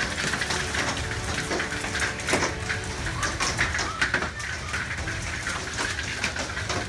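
Heavy storm rain falling, a steady hiss with many scattered sharp taps.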